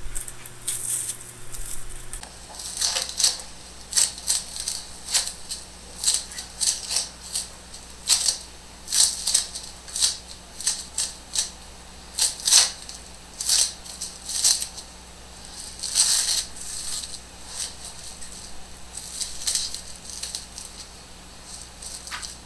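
Aluminium foil crinkling and crackling under gloved hands as foam pieces are pressed down onto it, in short irregular bursts one or two a second.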